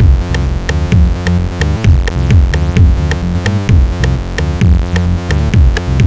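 Electronic background music with a steady beat: regular hi-hat ticks over deep synth bass notes that slide downward.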